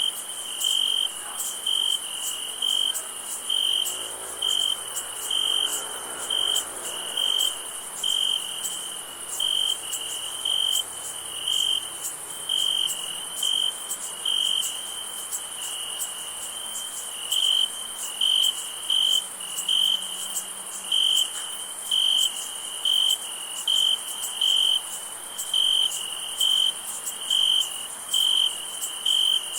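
Chorus of crickets on a summer night: one loud, evenly repeating chirp about one and a half times a second over a steady, high-pitched insect trill.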